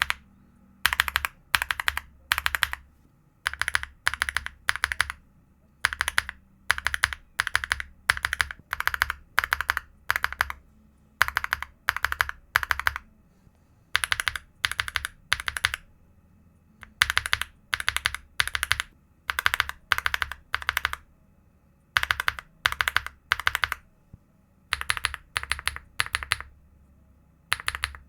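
Mechanical keyboard switches being pressed in quick runs of about four keystrokes, each run followed by a short pause, repeating steadily.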